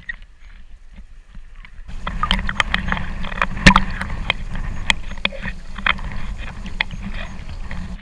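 Water sloshing and splashing against a camera held at the sea surface, full of small clicks and knocks from droplets and ripples hitting the housing. It is quieter for about the first two seconds, then becomes a louder, dense rumble, with one sharp knock a little after the middle.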